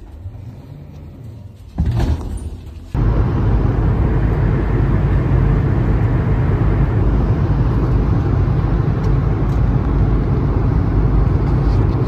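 Steady cabin noise of a passenger jet in flight: a loud, even rumble of engines and rushing air, which starts abruptly about three seconds in after a quieter low hum.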